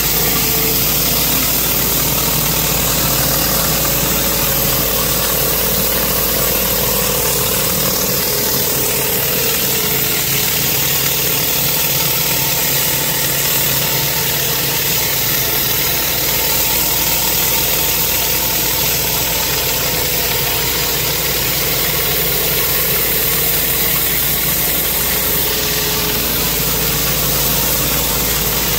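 Pressure washer engine running steadily under the even hiss of a spinning rotary surface cleaner spraying high-pressure water onto concrete.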